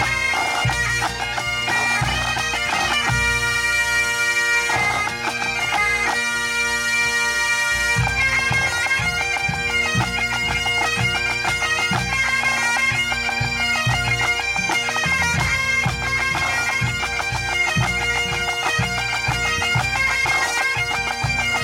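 Pipe band playing a medley: Great Highland bagpipes sounding steady drones under a chanter melody, with the band's drums beneath. Long held notes give way to a quicker tune about eight seconds in.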